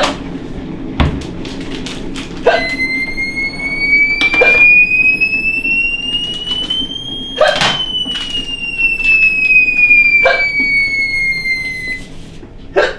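A person hiccuping over and over, about seven short hiccups at uneven gaps, over a steady low hum. Meanwhile a high whistle-like tone slowly rises in pitch for about five seconds, then slides back down over the next five; it is the loudest sound.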